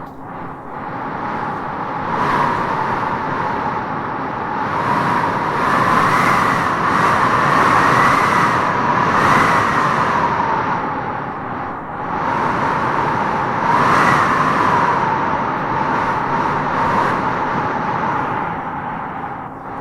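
Strong wind howling through trees, swelling and easing in gusts, with a whistling howl that rises in pitch at each gust's peak.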